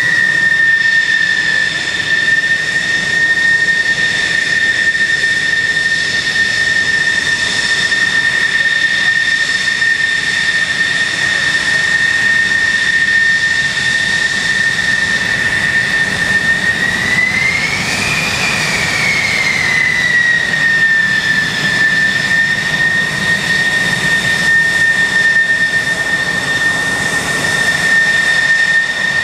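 Military jet engines running with a loud, steady high turbine whine over a low rumble; about two-thirds of the way through, the whine rises briefly in pitch and settles back.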